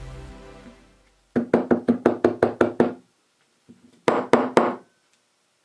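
A fast run of about ten sharp knocks, a short pause, then another quick cluster of four: a nail polish bottle with a plastic funnel in its neck being shaken and knocked to send powdered chalk down into the polish. Background music fades out in the first second.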